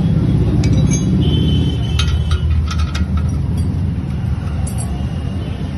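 A steady low rumble, with a few sharp metallic clicks about two to three seconds in from a spanner working the exhaust header clamp.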